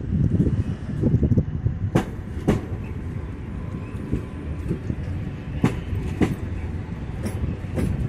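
Stadler Flirt3 electric multiple unit rolling slowly into the platform: a low rumble, with the wheels clicking in pairs over rail joints about every two to four seconds.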